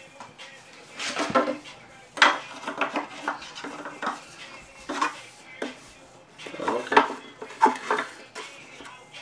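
Dishes and cutlery clattering as they are handled, in irregular runs of sharp clinks and knocks.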